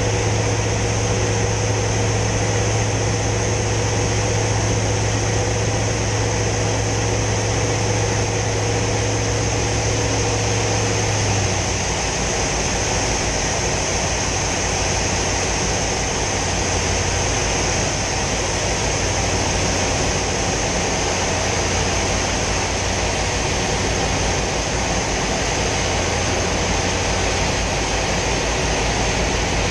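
Hawker Sea Fury T20's Bristol Centaurus radial engine heard from inside the cockpit in flight: a deep, steady drone under a constant rush of air. About a third of the way through, the engine note drops lower and softer.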